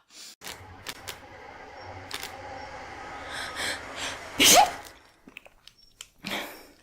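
A person sneezing once, loud and sharp, about four and a half seconds in, with a brief rising voiced note in the blast: an allergy sneeze. A steady low hum runs underneath before it.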